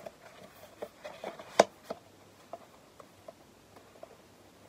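Handling noise from a plastic Blu-ray case: scattered light taps and clicks of plastic and card, with one sharper click about a second and a half in.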